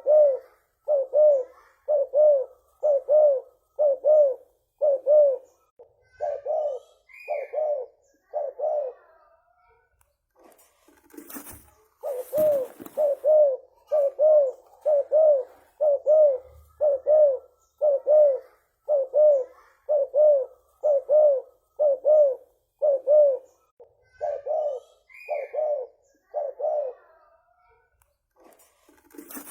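Spotted dove (tekukur) cooing: long runs of low coos, about two a second, broken by pauses of a few seconds. A brief noisy burst comes about twelve seconds in.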